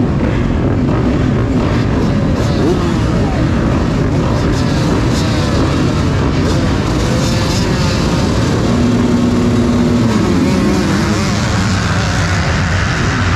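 Motocross dirt bike engine racing, its pitch rising and falling repeatedly as the throttle opens and closes.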